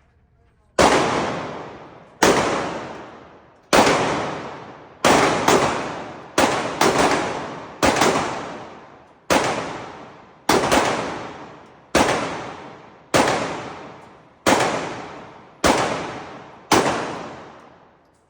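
Firearm being fired at a shooting range: about fifteen shots at an uneven pace, mostly a second or so apart with a few quick doubles. Each shot rings out with a long echo that fades over about a second.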